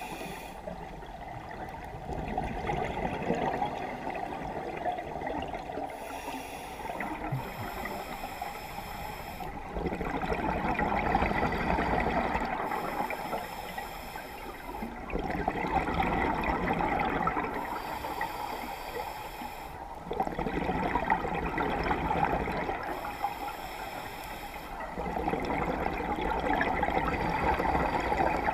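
A scuba diver breathing through a regulator, heard underwater: a rush of bubbling exhaust about every five seconds, each lasting two to three seconds, alternating with the fainter hiss of inhaling through the regulator.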